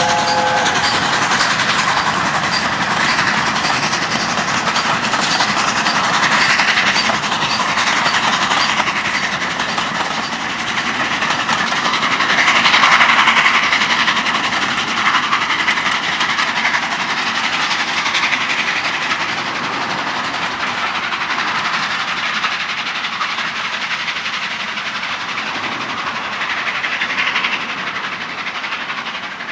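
A1 Pacific steam locomotive 60163 Tornado, a three-cylinder engine, working up a steep gradient with its train: a whistle ends about a second in, then a continuous loud rush of the locomotive and carriages running past, easing slightly near the end.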